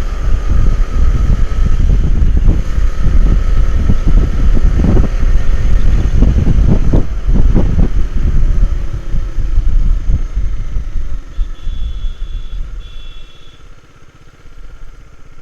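Motorcycle riding at speed, heard through a GoPro's clip-on mic: a steady low rumble of engine, wind and road noise that fades over the last few seconds as the bike slows. Two short high beeps sound near the end.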